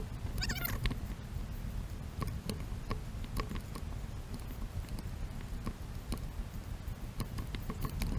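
Footsteps crunching on a sandy, rocky trail, about two or three steps a second, over a low wind rumble on the camera's microphone. A short, high wavering sound comes about half a second in.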